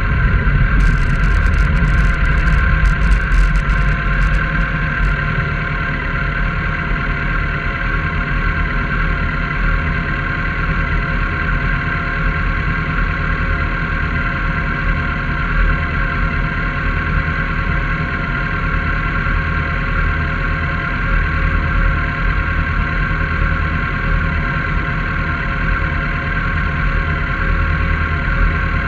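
Vehicle engine idling steadily while stopped at a red light, with a few sharp high clicks in the first few seconds.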